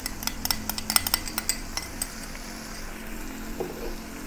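Metal wok spatula clinking and scraping against the wok in a quick run of sharp taps for about the first two seconds, then quieter while stir-fry sauce is poured in.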